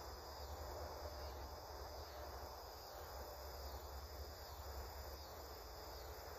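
Insects, crickets or katydids, chirping in a steady, evenly pulsing late-summer chorus, faint under a low rumble.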